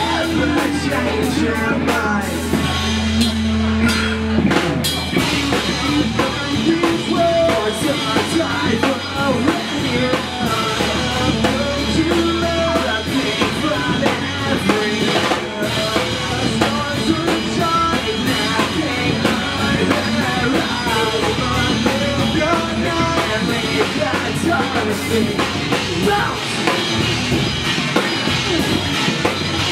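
Live pop-punk band playing loudly: drum kit, distorted electric guitars and bass, with a singer's voice over them.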